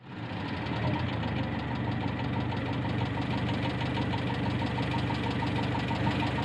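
Car engine running steadily, coming up quickly from silence in the first half second and then holding an even, pulsing hum.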